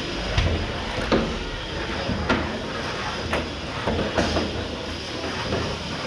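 Antweight combat robots colliding in a plastic-walled arena: several sharp knocks about a second apart over a steady low hum.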